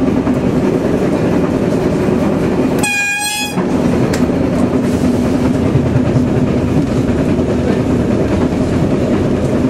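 A train running, a loud steady rumble with wheel clatter on the rails. About three seconds in, a short single blast of its signal horn cuts through.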